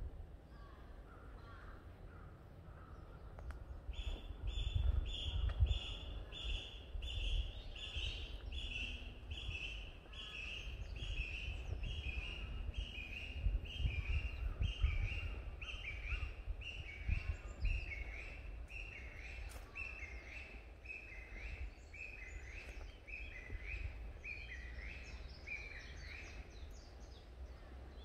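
A bird calling: a long series of evenly repeated high notes, about two a second, slowly falling in pitch. It starts about four seconds in and stops near the end, over a low rumble.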